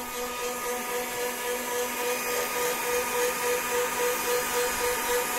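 Cooling fans of a TBE 2000 W pure sine wave inverter running with a steady whirring hum, a little noisy. They have switched on because the inverter has warmed up; its manual says they come on at 45 degrees.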